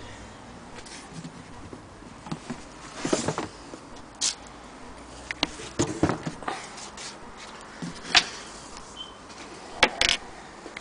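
Handling noises on the wooden case of an antique hand-crank sewing machine: scattered light clicks and taps, short rubbing scrapes, and a few sharper knocks, the loudest about eight seconds in.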